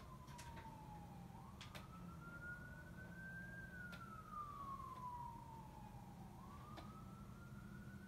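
Fire truck siren wailing faintly in the distance, one slow rise and fall in pitch about every five seconds, over a low steady rumble. A few short sharp clicks come through about a third of a second, a second and a half, four seconds and nearly seven seconds in.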